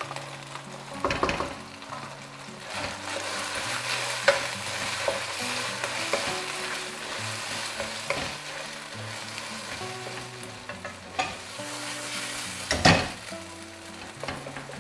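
Minced chicken filling sizzling in a frying pan as crème fraîche is stirred in with a spoon. Two louder scrapes or knocks come about a second in and near the end.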